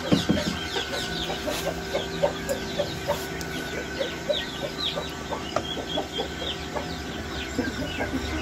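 Chicks peeping in many short, falling chirps, with chickens clucking over and over lower down and a steady hum underneath.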